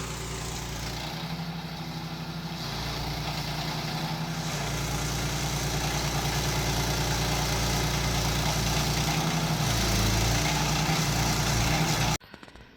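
Stump grinder's engine running steadily as its cutting wheel grinds out a silver birch stump. It grows gradually louder, its note dips briefly about ten seconds in, and it cuts off suddenly near the end.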